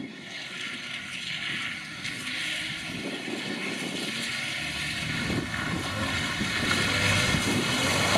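First-generation Fiat Punto rally car driving toward the microphone on a wet, muddy track. Its engine grows steadily louder, and the engine note becomes strong from about halfway, over the hiss of tyres through water and mud.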